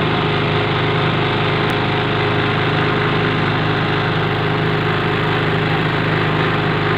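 A small boat's engine running steadily at a constant speed as the boat moves along under power.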